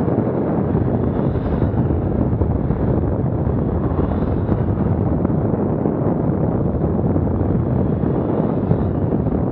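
Steady wind noise buffeting the microphone while travelling at speed: a dense, even rumble with no clear tones or distinct events.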